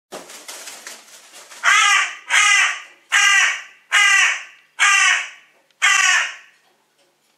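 A crow cawing six times in a steady series of loud, harsh calls, after a softer rustling noise.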